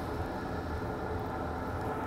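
Steady low background rumble and hiss, with no distinct sound events.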